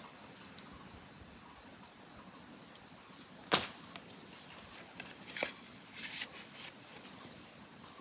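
Steady, high-pitched insect chorus, with one sharp knock about three and a half seconds in and a few fainter clicks a couple of seconds later.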